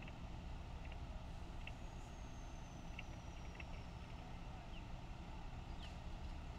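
Steady low rumble of idling vehicle engines, with faint short high chirps now and then.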